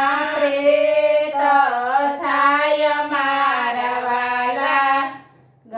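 Women singing a Gujarati devotional bhajan in unison, a slow melody of long held notes that breaks off about five seconds in at the end of the line.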